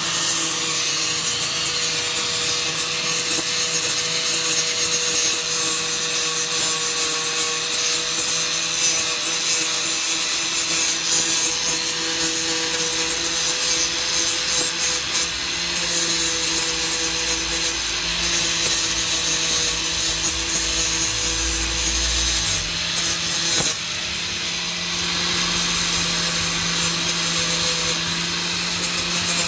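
A corded handheld power tool runs steadily against the steel hub of a tractor wheel disc. Its motor whine holds a steady pitch under a rough scraping rasp, with a brief dip about three-quarters of the way through.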